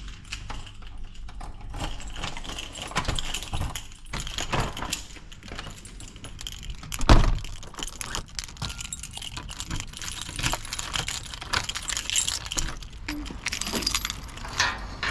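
Keys jangling in the hand while a uPVC door is unlocked, opened and locked, with a loud thump about seven seconds in as the door is shut. Near the end a wrought-iron gate's latch clanks as the gate is opened.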